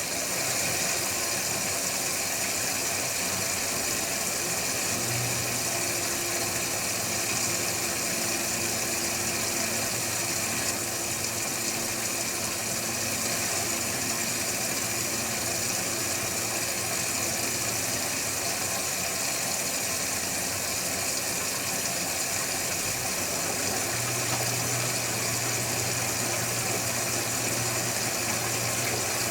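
Electrolux Wascator W355H commercial washing machine running at a steady speed with a loud, even whirring noise. A low hum comes in about five seconds in, drops out about two-thirds through, and returns near the end.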